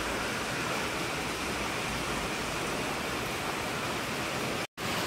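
Steady rush of falling water, an even hiss without a beat, cutting out for an instant near the end.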